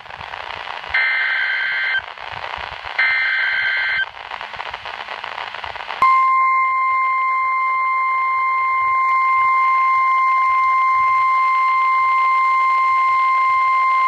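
NOAA Weather Radio emergency alert from a Midland weather radio's speaker: two short, harsh bursts of the digital SAME header data tones, a second apart over radio hiss, then about six seconds in the steady single-pitch warning alarm tone begins and holds. This sequence signals an urgent warning, here a tornado warning.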